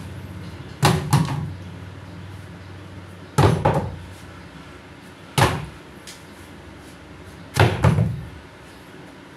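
Poles dropped one after another onto a wooden plank floor: four loud knocks, the first and last of them doubled, each with a short low ring.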